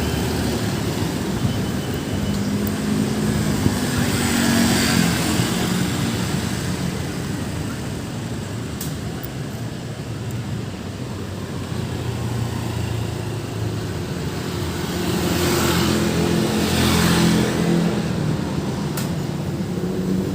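Road traffic on a busy road: vehicle engines running as cars pass, with two louder vehicles going by, one about four seconds in and another about fifteen seconds in.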